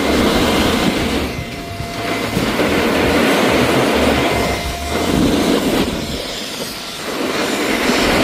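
Snowboard edges scraping and carving over groomed snow at speed, with wind rushing on the microphone; the noise swells and eases with each turn, dipping briefly about a second and a half in, near five seconds and again near seven.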